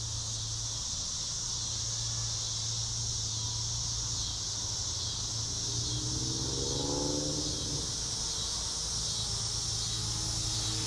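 Steady high chorus of crickets and other insects over a low steady hum. Around six seconds in, a faint whine rises and falls over about two seconds.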